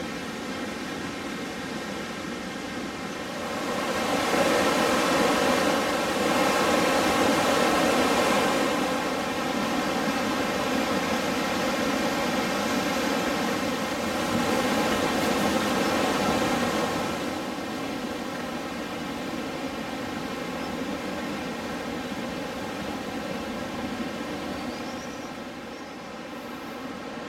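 Rushing river water, a steady whitewater rush that grows louder about four seconds in, holds, then falls back to a softer rush about seventeen seconds in.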